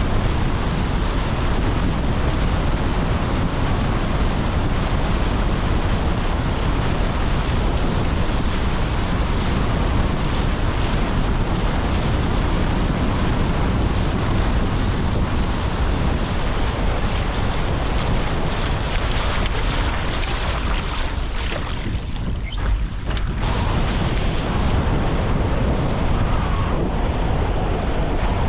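Strong wind buffeting the action camera's microphone over the rush and spray of water off the hulls of a Tornado racing catamaran sailing fast upwind. The sound goes briefly dull about three-quarters of the way through, then returns.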